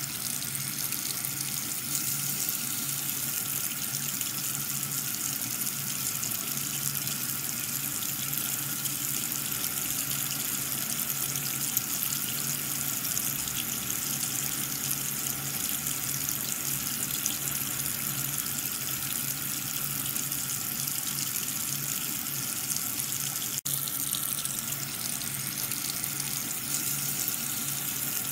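A thin jet of water from a small tube spraying onto a soap-foamed plastic toy car and splashing into a shallow tub of water below, steady throughout, with a steady low hum underneath.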